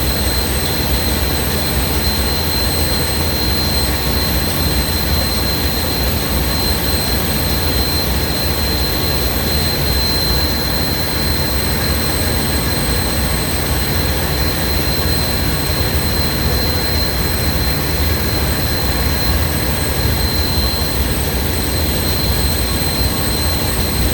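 Ship's machinery running at sea: a steady heavy rumble with a constant high-pitched whine above it.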